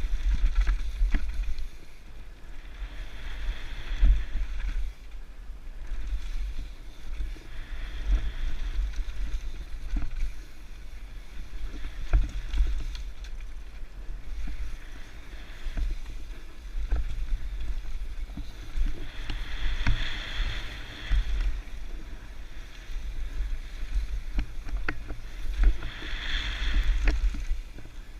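Wind buffeting an action camera's microphone with an uneven low rumble while a mountain bike rides down a rough bike-park trail, with scattered knocks and rattles from the bike. Patches of higher hiss come and go a few times.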